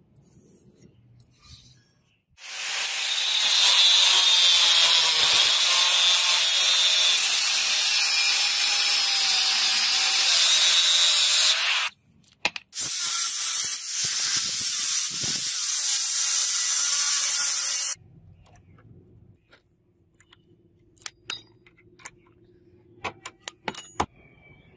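Angle grinder cutting through a forged steel blade, in two long runs: the first about nine seconds, the second about five seconds after a brief stop. A few light clicks and taps follow near the end.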